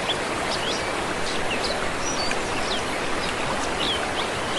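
Waterfall and stream water rushing steadily, with scattered short, high bird chirps over it.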